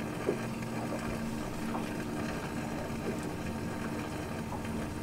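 Boat motor running steadily while the boat moves slowly ahead, an even hum with a constant tone, and a brief click about a third of a second in.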